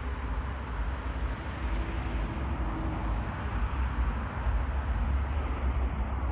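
Wind buffeting the microphone: an uneven low rumble over a steady rush of outdoor noise.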